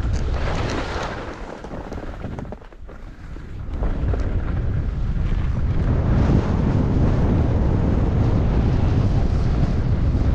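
Wind buffeting the microphone during a downhill ski run, with the hiss of skis sliding on snow. It eases off for a couple of seconds about two seconds in, then builds back up.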